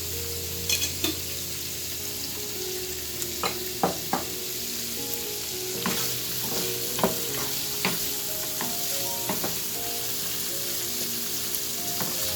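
Chopped capsicum, onion and green chili sizzling as they are stir-fried in a hot pan, with a spatula clicking and scraping against the pan now and then.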